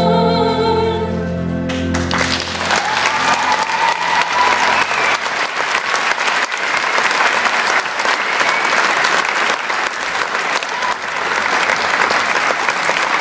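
A held final chord of music ends about two seconds in. A theatre audience then applauds steadily.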